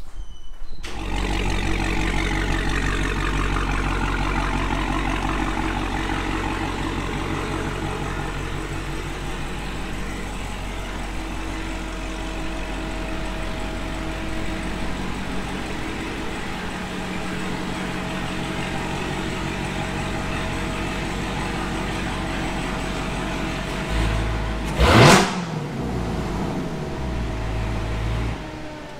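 Dodge Charger SRT Hellcat's supercharged 6.2-litre HEMI V8 running at low speed as the car is backed into a garage. Near the end there is one short, loud rev with the revs falling away, and then the engine shuts off.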